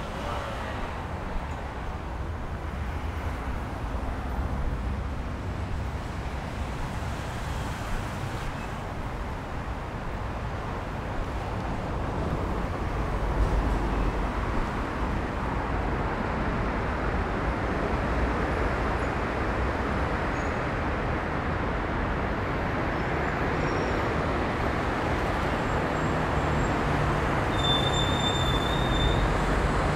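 Steady road traffic: cars driving along a multi-lane avenue and through the underpass below, a continuous rumble and tyre hiss. It gets louder about halfway through.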